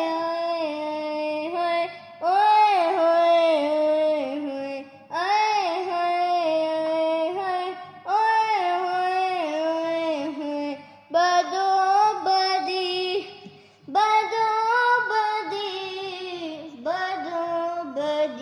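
A child singing in a high voice, long held and ornamented notes without clear words, in seven phrases of two to three seconds each separated by short breaths, over a faint low accompaniment.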